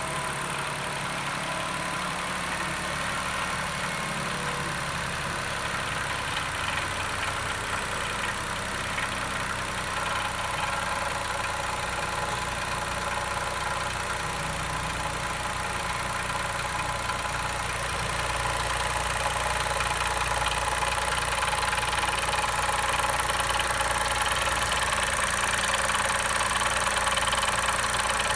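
Chevrolet Onix 1.0 turbo three-cylinder engine idling with an abnormal mechanical noise that appears after the brake pedal is pressed on a cold first start, which the owner suspects comes from the brake vacuum pump. The sound grows a little louder in the second half.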